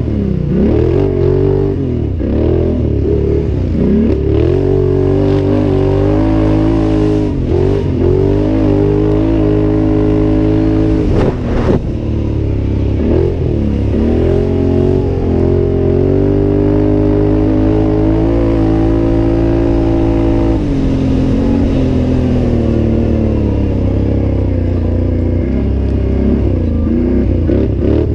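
Can-Am Outlander 800 ATV's V-twin engine being raced hard, its revs repeatedly dropping off and climbing again through the corners, with a longer steady high-rev pull in the middle. There is a sharp knock about eleven seconds in.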